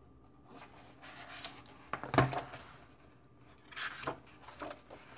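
Pages of a hardcover picture book being turned by hand, with paper rustling and flapping in short bursts and a few light ticks. A single sharp knock about two seconds in is the loudest sound.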